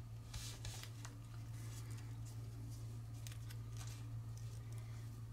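Origami paper (kami) crinkling and creasing between fingertips as a flap is pinched and squeezed, in scattered short crackles, the strongest about half a second in, over a steady low hum.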